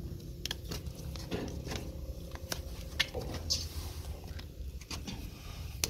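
Hoof-trimming tools cutting a goat's hoof horn: a scatter of short, sharp clicks and snips at irregular intervals.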